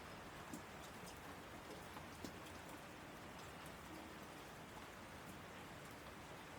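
Faint steady hiss with scattered small ticks.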